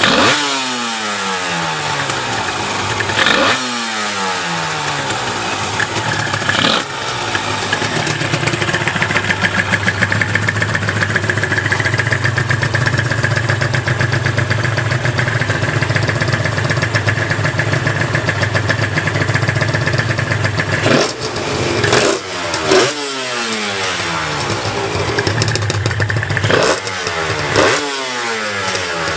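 Honda NSR250R (MC16) two-stroke V-twin engine being revved: quick throttle blips whose pitch falls back each time, then a steady higher engine speed held for about twelve seconds, then more blips near the end. The engine is running without abnormal noise, as the seller states.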